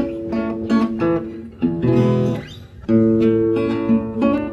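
Acoustic guitar music: a run of plucked notes, then strummed chords that ring on from about three seconds in.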